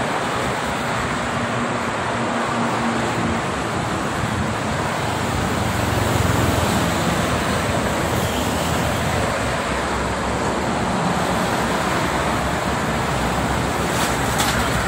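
Steady, fairly loud noise of dense multi-lane highway traffic: tyres and engines of cars, buses and heavy trucks passing, swelling a little about six seconds in as heavier vehicles go by.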